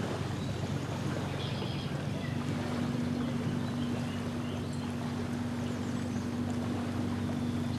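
Steady low drone of a distant motorboat engine over wind and lake water, with a steadier hum tone joining about two seconds in. A few faint bird calls.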